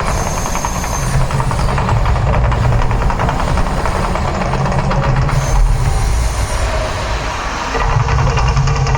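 The Mirage volcano show's eruption effects: a loud, steady deep rumble with a rushing hiss over it.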